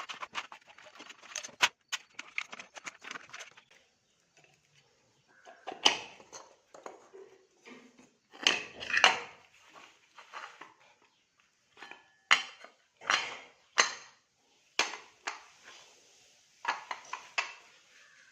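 Metal parts of a ceiling fan's motor housing and hand tools clinking, knocking and scraping as the fan is opened up, in irregular clatters with a brief lull a few seconds in.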